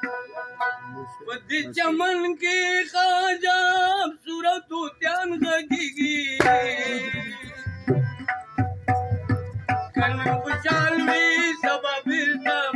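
A Pashto ghazal performed live: a man sings in wavering, ornamented phrases over a steady harmonium drone, with tabla strokes keeping the rhythm.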